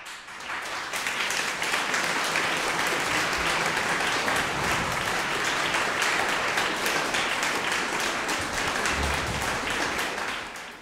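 Audience applauding, swelling in the first second, then holding steady before fading out near the end.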